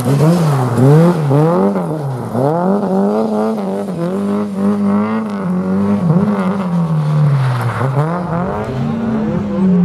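Opel slalom car's engine revving hard through tight turns. The revs swing up and down several times in the first two seconds, hold high for a few seconds, drop low about eight seconds in, then climb again near the end.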